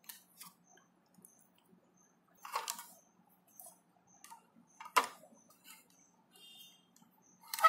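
Light clicks and ticks of small metal and plastic parts of a dry electric iron being handled and fitted together. There is a short scrape about two and a half seconds in and a sharper knock about five seconds in.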